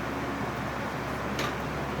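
Milling machine running steadily in its high speed range, a low even motor hum, with a faint click about one and a half seconds in.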